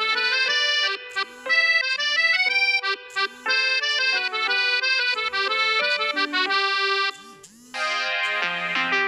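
Huawei P30 Lite ringtone: a melody of short, distinct notes. It stops about seven seconds in, and a different ringtone with a fuller sound starts under a second later.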